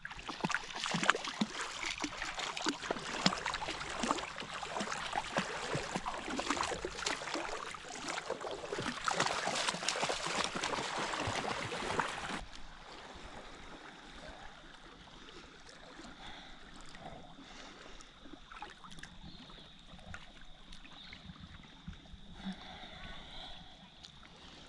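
Water splashing and sloshing close by, full of small sharp clicks. About halfway through it drops suddenly to quieter water sounds with a faint steady high whine.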